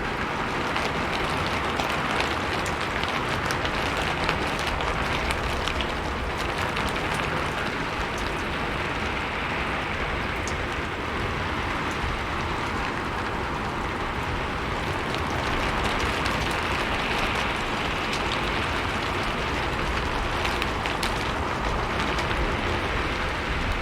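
Steady rain falling on a roof: a continuous hiss with many small drop taps scattered through it.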